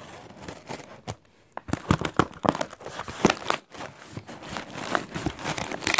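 Cardboard parcel sealed with clear packing tape being cut and pulled open by hand: irregular crinkling, tearing and scraping of tape and cardboard, busiest from about a second and a half in.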